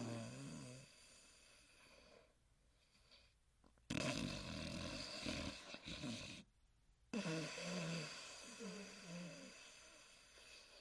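Huckleberry Hound snoring in the cartoon: loud, rasping, low-pitched snores. Two come about 4 and 7 seconds in, each starting suddenly and fading over a couple of seconds, after the tail of an earlier one.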